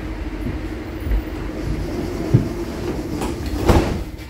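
Cologne light-rail tram car running, heard from inside the passenger compartment: a steady low rumble and hum, with a few short knocks and a louder clatter near the end.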